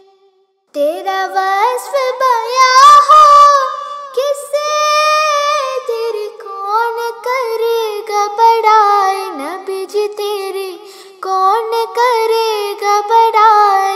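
A girl's solo voice singing an Urdu naat with no instruments, in long ornamented phrases that slide and waver in pitch. The singing comes in after a brief silence under a second in.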